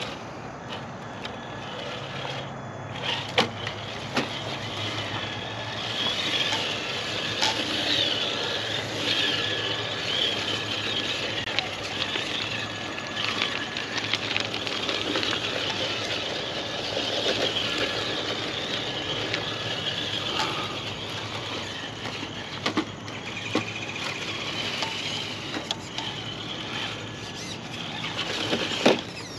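1/10-scale RC rock crawler's electric motor and gear drivetrain whining as it crawls, the whine rising and easing with the throttle, with scattered clicks and knocks from the truck's tyres and chassis on the course.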